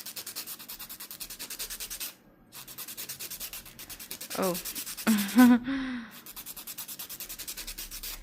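Nail file rubbed rapidly back and forth over a fingernail, about ten quick scraping strokes a second, smoothing the glued-on cotton of a repaired nail. The filing stops briefly about two seconds in and again for a couple of seconds in the middle, then starts again.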